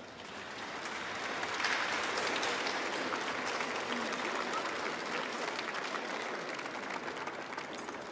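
Audience applauding: the clapping swells over the first two seconds, holds steady, then eases off near the end.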